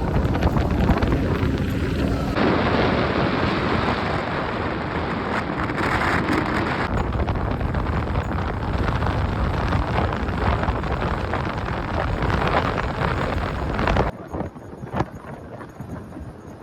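Wind buffeting the microphone over the rumble of a moving vehicle on the road. The noise changes abruptly a couple of times and drops off sharply near the end.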